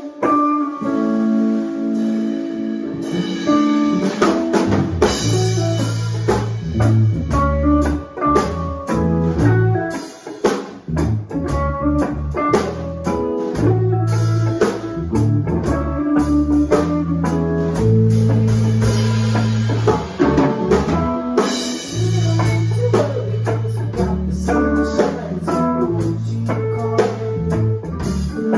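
Small rock band playing live in a room: two electric guitars, electric bass and a Gretsch drum kit. The guitars play alone at first, then the drums and bass come in a few seconds in and the band settles into a steady groove.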